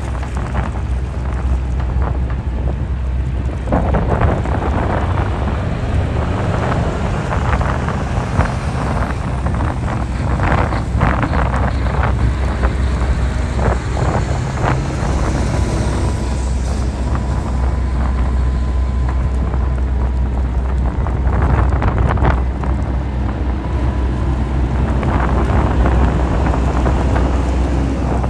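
Heavy trucks' diesel engines running as they drive off a car ferry's ramp onto the quay, a steady low rumble with occasional knocks, and wind buffeting the microphone.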